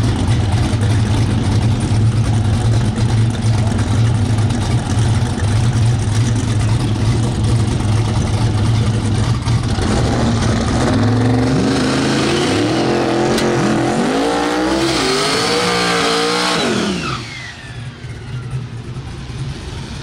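Chevy II Nova drag car's engine running at a steady heavy rumble, then about halfway through it revs up and down hard through a burnout for about six seconds before letting off sharply.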